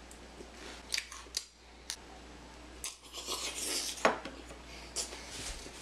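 Close mouth sounds of biting and chewing a Tim Tam chocolate biscuit: a handful of sharp crisp crunches and clicks, with a longer hissing slurp of milk about three to four seconds in.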